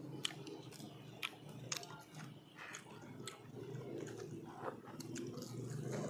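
People chewing food close to the microphone, with irregular sharp crunches and clicks as they bite into larb, sticky rice and raw vegetables, over a faint low background hum.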